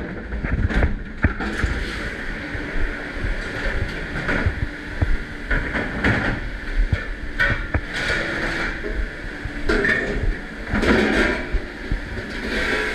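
Dishes and racks clattering and knocking repeatedly, over the steady running noise of a commercial dishwashing machine.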